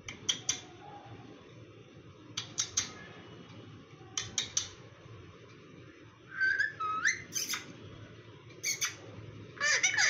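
Indian ringneck parrot (rose-ringed parakeet) giving short, harsh squawks in quick pairs and triplets every second or two, with a longer whistled call about six and a half seconds in.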